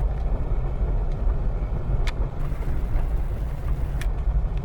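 Car running at low speed, its engine and road rumble heard from inside the cabin as a steady low drone, with two short sharp clicks about two seconds apart.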